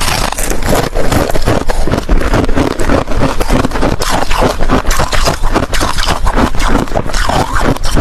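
Ice cubes being crunched and chewed close to the microphone: a loud, dense, unbroken run of crackling crunches.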